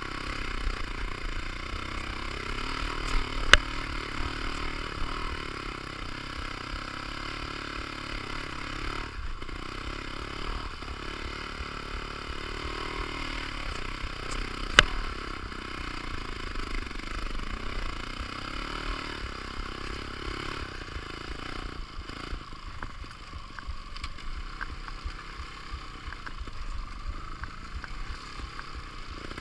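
Trials motorcycle engine running along a rough trail, its pitch rising and falling with the throttle. Two sharp knocks stand out, at about three and a half seconds and about fifteen seconds in.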